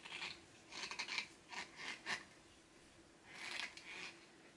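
Fingers picking and scraping at the plastic safety seal of a small cleansing-oil bottle: a series of short, scratchy rubs, with a longer scrape near the end.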